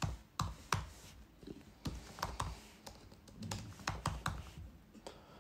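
Computer keyboard typing: irregular keystrokes, thinning out near the end.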